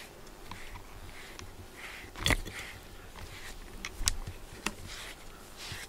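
Soft scratchy strokes of a brush through a cat's fur, with a few sharp clicks or knocks, the loudest about two seconds in.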